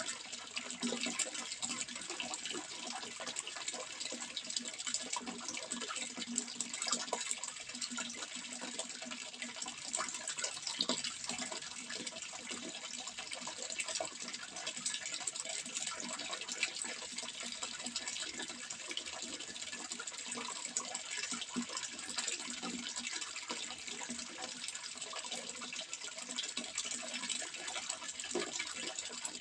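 Running water, a steady continuous rush of many small splashes.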